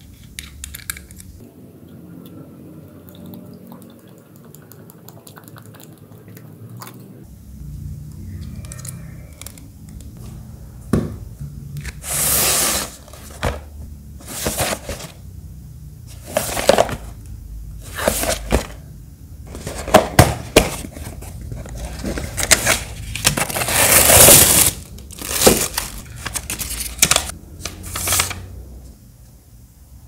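Product packaging being opened and handled: a cardboard box and plastic wrapping rustling, scraping and crinkling in an irregular string of loud rustles. It starts about eleven seconds in, after a fairly quiet stretch.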